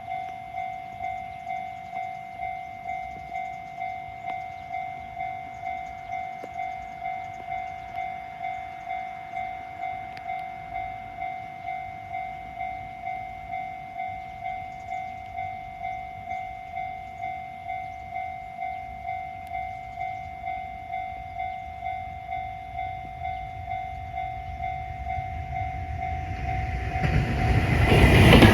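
Japanese level-crossing warning bell ringing, an electronic ding repeating evenly about twice a second. Near the end a train approaches the crossing, its noise rising steeply until it drowns out the bell.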